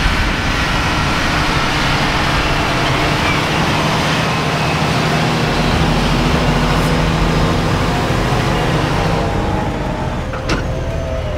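Two big diesel tractors, a John Deere 8370RT and a Fendt 933 Vario, running steadily under load as they pull loaded grain-cart trailers past at close range. The engine hum eases off about nine seconds in, and a single sharp click comes near the end.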